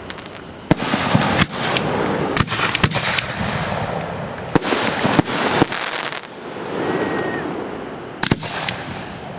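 Aerial fireworks display: about eight sharp bangs of shells bursting, bunched in the first six seconds with one more near the end, over a continuous hiss of crackle from falling sparks.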